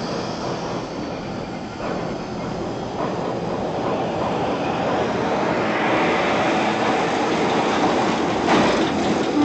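Steel swing bridge turning shut, its wheels rumbling and squealing on the turning track, with a sharp knock near the end.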